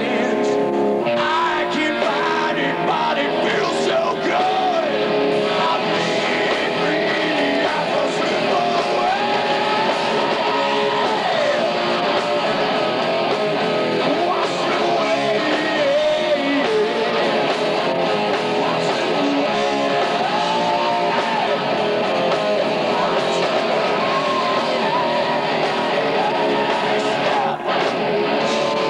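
Grunge band playing live: distorted electric guitar, drums and bass under a male singer's long, wavering sung lines. Heard thin, with little deep bass.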